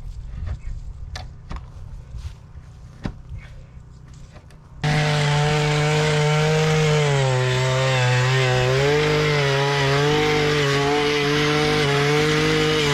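A few light knocks and scrapes, then about five seconds in a chainsaw suddenly runs loud at high revs, its pitch dipping and recovering under load as it cuts, and winding down at the very end.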